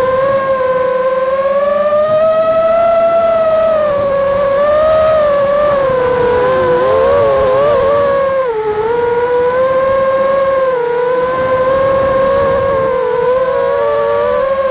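Racing drone's motors whining, the pitch sliding up and down with throttle changes during freestyle flying, with a brief drop in pitch and level a little past halfway before climbing again.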